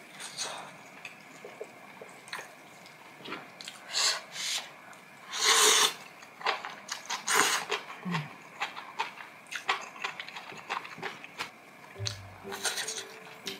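Close-miked mukbang handling and eating noises: a scattering of small clicks and rustles, with one louder noisy sound lasting about half a second about halfway through. Background music comes in near the end.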